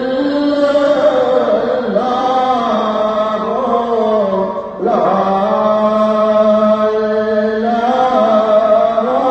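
Sufi dhikr chanted by a voice in long, drawn-out melodic phrases, with a short break about five seconds in.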